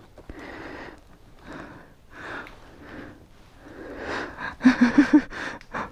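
A person breathing hard and panting close to the microphone, the breaths coming about every two-thirds of a second. The panting grows louder near the end, with a few short voiced gasps.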